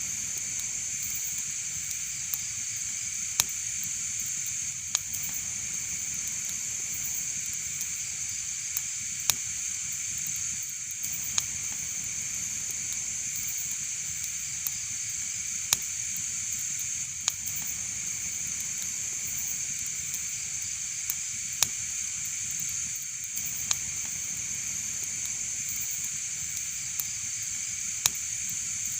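Wood fire crackling in a fireplace: a steady hiss with sharp single pops every second or two.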